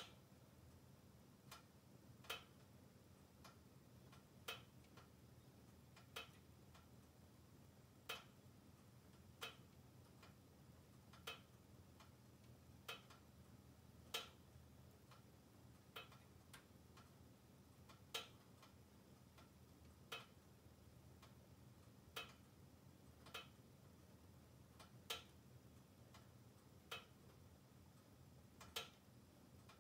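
Wood fire in a closed log-burning stove, crackling and popping with sharp, irregularly spaced clicks about every second or two over a faint low hum.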